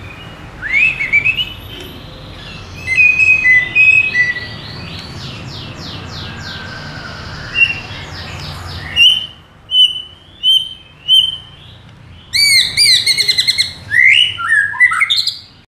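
White-rumped shama (murai batu) in agitated ('emosi') full song: loud, varied whistled phrases with rising notes and fast repeated notes, a few short clipped whistles, then a rapid run of notes near the end.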